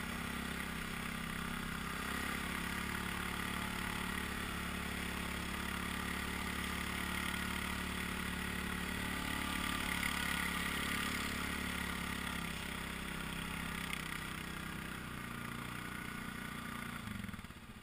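Off-road vehicle engine running steadily at low speed while riding along a trail, rising a little about halfway through and easing off near the end.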